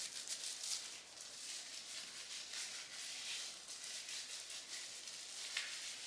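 Gloved fingers massaging hair dye through wet, dye-coated hair: faint, irregular rubbing and rustling.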